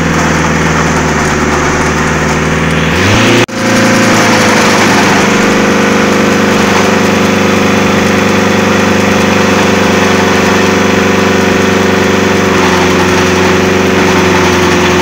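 Wood chipper running steadily. About three seconds in its pitch rises, the sound breaks off for a split second, and it then runs on steadily at the higher speed.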